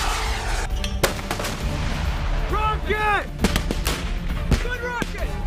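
Several sharp gunshots from military live-fire training, spread out across a few seconds, over background music.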